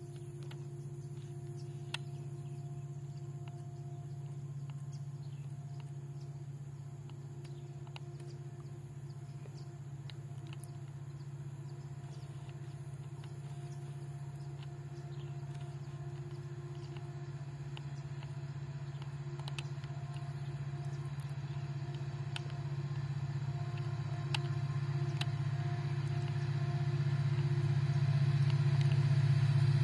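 Distant diesel locomotive approaching: a steady low engine hum that grows gradually louder through the second half.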